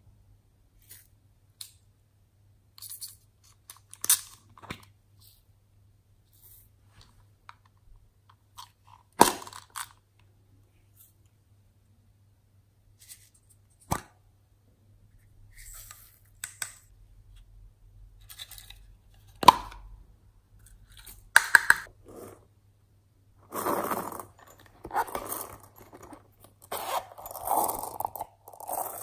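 Small plastic toy containers of glitter and sequins being handled, with scattered sharp clicks and light taps. A run of louder rustling and crinkling starts about 23 seconds in as a silicone zip coin purse of pearl beads is handled.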